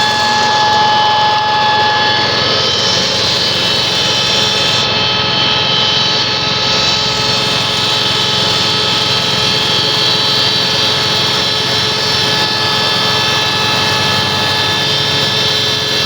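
FFC-23 disc mill running steadily at speed, grinding coffee beans, with a loud, even whine over the grinding noise.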